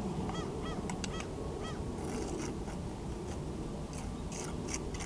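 Four short squeaky chirps, then a run of short scrapes and clicks as a tool spreads a thin layer of cement mortar onto the brick.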